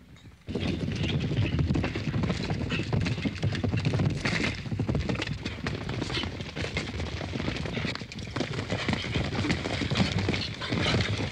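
Cavalry horses galloping, a dense, fast run of hoofbeats on the ground starting about half a second in.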